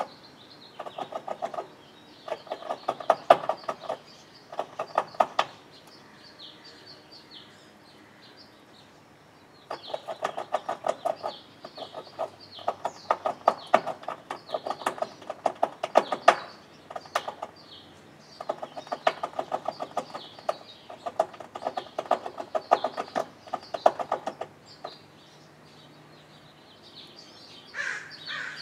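Fox squirrel gnawing on the top edge of a metal rain gutter, sharpening its teeth: a rapid rasping, sawing scrape of incisors on thin metal that reverberates through the gutter. It comes in bouts of a few seconds with short pauses between.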